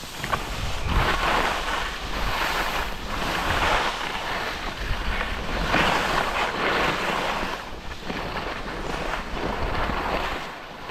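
Skis hissing and scraping over snow in repeated surges, turn after turn, with wind rumbling on the microphone.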